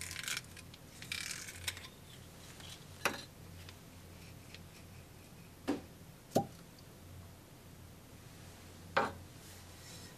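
Stopper being worked out of a glass whisky bottle by hand: first a faint rubbing, then four short clicks and knocks spread over several seconds.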